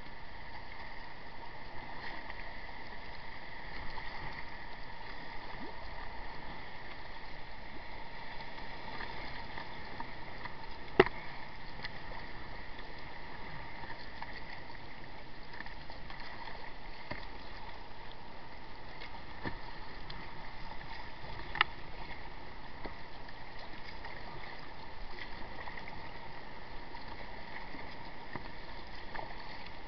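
Water washing and splashing against a sea kayak as it is paddled. Two sharp knocks stand out, one a little over a third of the way in and another about two-thirds in.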